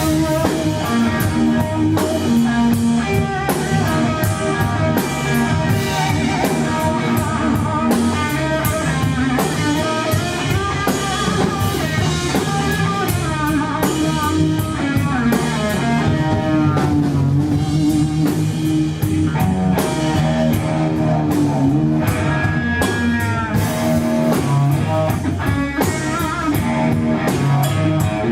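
Live rock trio playing: electric guitar soloing with bent, wavering notes over bass guitar and drum kit.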